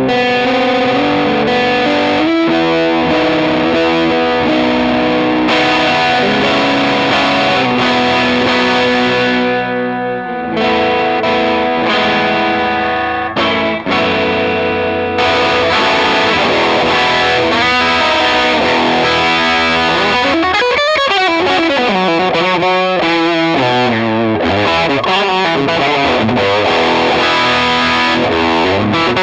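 Warmoth 72 Telecaster Deluxe-style partcaster electric guitar with an alder body, Seymour Duncan '59 neck and Gibson 500T bridge humbuckers, played through a distorted amp picked up by a microphone. Chords and single notes ring on, with notes bent up and down about two-thirds of the way in.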